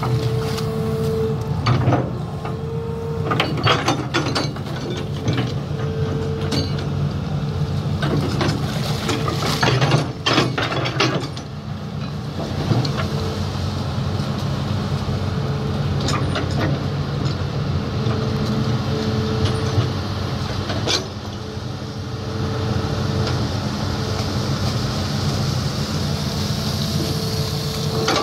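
Hitachi Zaxis 210F amphibious excavator's diesel engine running under load as it digs, with a whine that comes and goes over the engine. Clanks and knocks from the bucket and boom linkage come thickest in the first half, and a steady hiss rises in the second half.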